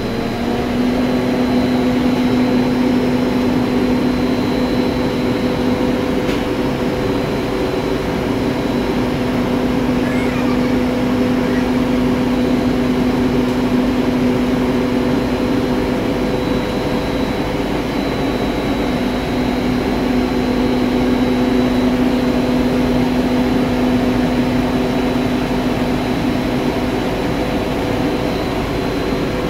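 Three-phase motor driven by a 22 kW variable frequency drive, running with a steady loud hum and a thin high whine. It gets louder over the first couple of seconds as the drive brings it up to 50 Hz, then holds steady.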